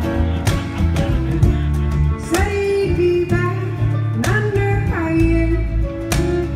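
Live acoustic folk band playing: a woman singing two phrases in the middle, over mandolin, acoustic guitar and upright bass, with regular percussion hits.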